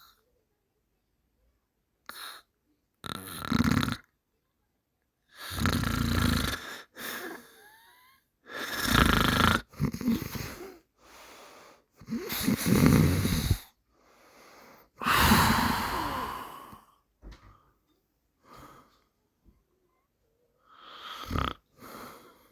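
A person snoring loudly in separate breaths, one every few seconds. Each snore lasts about one to two seconds, with silent pauses between.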